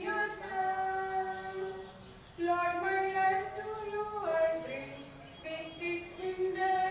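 A woman singing unaccompanied into a microphone, holding long notes with short breaks between phrases.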